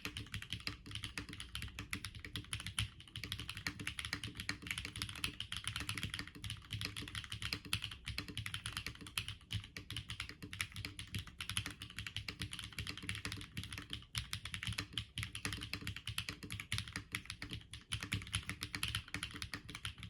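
Continuous fast typing on an Epomaker Galaxy65 mechanical keyboard with stock HMX Xinhai switches, an FR4 plate and double-shot PBT keycaps: a dense stream of keystrokes.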